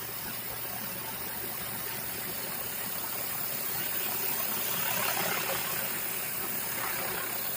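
Commercial pressure washer running, its rotary surface cleaner spraying concrete with a steady hiss that swells louder about halfway through.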